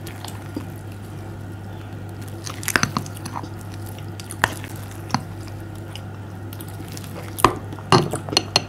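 Grainy jelly slime being stirred and folded with a plastic spatula in a glass bowl: soft wet squishing, with sharp clicks and taps of the spatula against the bowl, clustered about three seconds in and again near the end. A steady low hum runs underneath.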